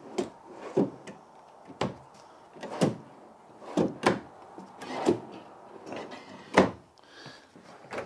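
Kitchen-island drawers being pulled open and pushed shut one after another: a run of short knocks and sliding noises about once a second, the sharpest about two-thirds of the way in.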